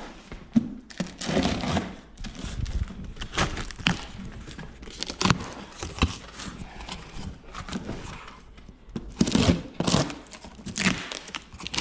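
A cardboard shipping box being opened by hand: packing tape tearing and packing material crinkling in irregular rustles and scrapes.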